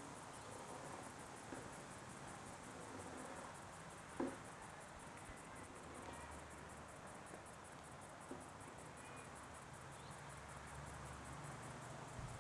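Faint insect trilling: a fast, even, high-pitched pulsing that runs on steadily, with a single sharp knock about four seconds in.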